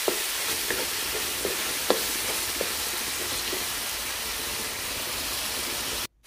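Red curry paste with lemongrass and Thai ginger frying in oil in a nonstick wok, a steady sizzle, with a wooden spatula scraping and knocking the pan a few times in the first three seconds as the sauce is stirred down until it starts to dry. The sound cuts off suddenly just before the end.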